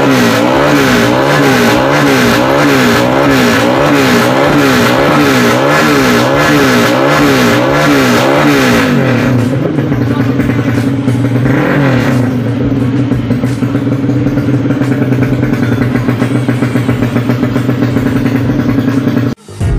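Drag-race motorcycle engine being revved during an ECU tuning sound check: the throttle is blipped up and down in a quick, even rhythm, about three revs every two seconds, then held at steady high revs from about ten seconds in. It cuts off abruptly near the end.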